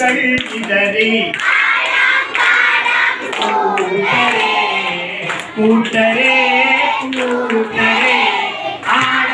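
A group of schoolchildren singing a song together and clapping along, led by a man singing into a microphone.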